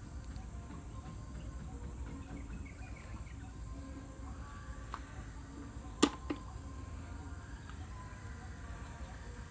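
Rural ambience: a steady high insect drone with faint bird chirps over a low rumble. A single sharp click comes about six seconds in, followed by a smaller one.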